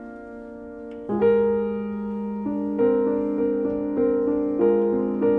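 Solo grand piano improvising: a held chord dies away, a new chord is struck about a second in and left ringing, then further chords follow in a slow, even pulse.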